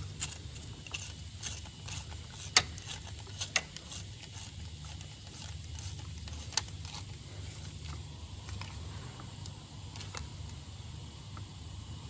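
Hand ratchet clicking and clinking as it tightens the diesel injector clamp bolts: scattered sharp metallic clicks, the loudest about two and a half seconds in, over a steady low background hum.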